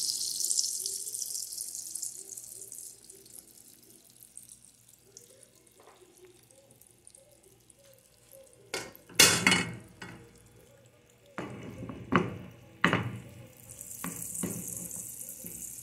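Beaten egg mixture sizzling in hot olive oil and margarine in a nonstick frying pan, loud at first and dying away over the first few seconds. A few sharp knocks come in the middle, and the sizzle rises again near the end.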